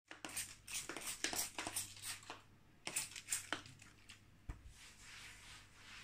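Quick rustling and crinkling strokes of something being handled, a dense run in the first three and a half seconds, then a soft thump about four and a half seconds in.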